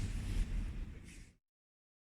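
Low, steady rumble of room noise with faint rustling, cutting off abruptly to dead silence about a second and a half in.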